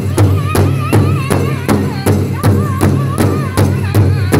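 Powwow drum group performing an intertribal song: several singers striking one large hide-headed powwow drum together in a steady beat, about three strokes a second, under high, wavering group singing.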